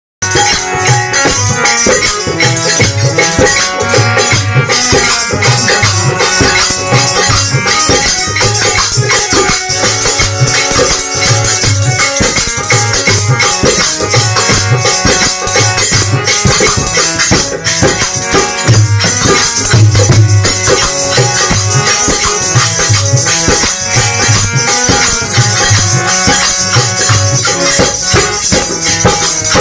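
Hindu devotional bhajan music from a kirtan, with a steady rhythm of drum beats under continuous jingling, shaker-like percussion.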